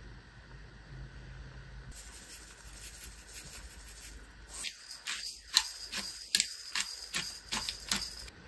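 A hand-twisted pepper grinder cracking pepper over a rice bowl: a run of sharp, gritty grinding clicks, about ten of them over the last few seconds. It is preceded by a faint hiss of sesame seeds being shaken out.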